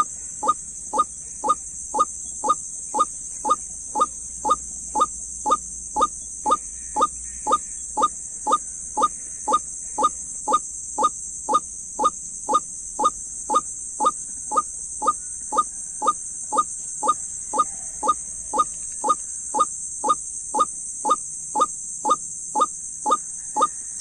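White-breasted waterhen calls: one short rising note repeated very evenly about twice a second. A steady high hiss sits behind it.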